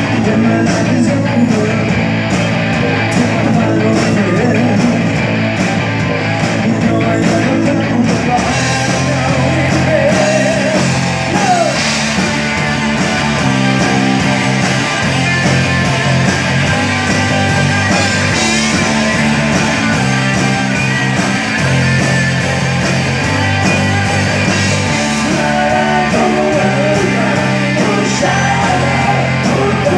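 Live rock band playing on electric guitars, bass guitar and drums. The bass settles into a steady repeating pattern about eight seconds in.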